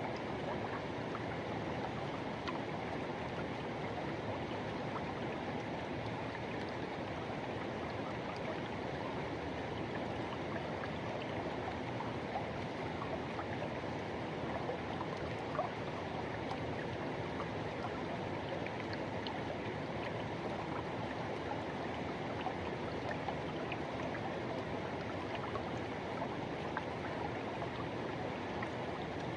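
Forest river water flowing: a steady, even rush.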